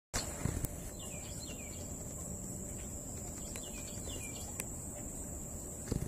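Insects droning steadily at a high pitch while a bird calls two pairs of short down-slurred notes, about a second in and again about four seconds in, with a couple of faint clicks.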